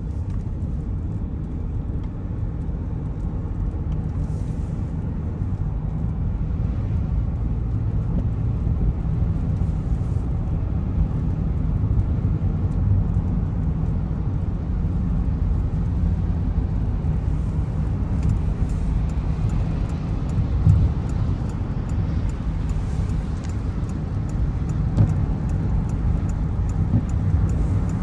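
A car driving on a rain-wet road: a steady low rumble of tyres and engine, with a faint hiss now and then and a couple of light bumps near the end.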